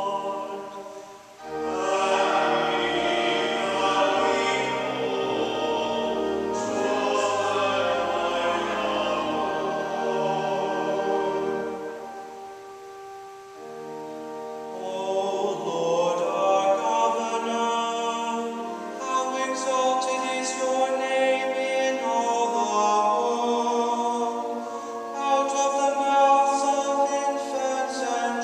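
A woman singing a sacred chant-like melody solo in a reverberant church, with sustained pipe-organ accompaniment. The sound breaks off briefly about a second in and again for a couple of seconds near the middle, between phrases.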